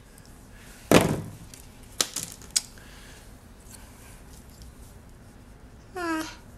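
Paper and card being handled on a tabletop: a dull thump about a second in, then three light clicks as a cut-out card piece is laid and positioned. Near the end, a short hum from a voice, falling in pitch.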